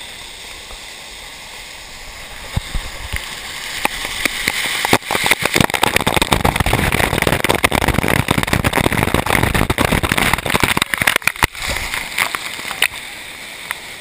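Water from a small waterfall pouring and splashing right onto the microphone: a loud, crackling rush of water striking the camera from about four seconds in until about twelve seconds. Before and after it, the steadier rush of the falling water.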